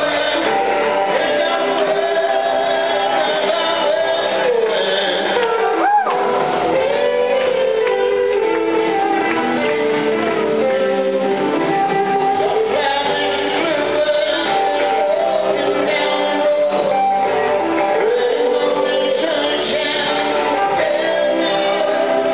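Live rock band playing in a large hall: electric guitars, bass and drums, with a man singing lead at the microphone. The sound is a dull, audience-recorded mix with the treble cut off.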